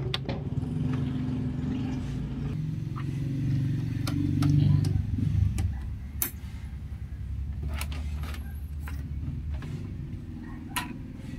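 Low engine rumble of a passing motor vehicle, swelling to its loudest about four or five seconds in and then easing off. Scattered sharp clicks and knocks come from an Ethernet cable's plug being handled and pushed into a TV's LAN port, the strongest a little past halfway.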